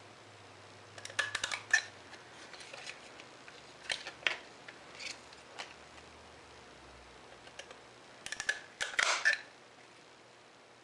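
Handheld border punch (Stampin' Up! Scallop Trim Border Punch) pressed down through a strip of cardstock, cutting with clusters of sharp clicks and crunches. The clusters come just after a second in, around four seconds in, and loudest about eight to nine seconds in, with the strip slid along between punches.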